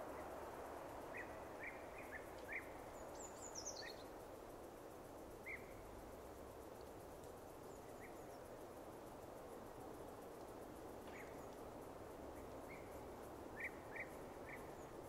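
Faint outdoor park ambience: a steady background hush with scattered short bird chirps, including a quick falling high call about three seconds in.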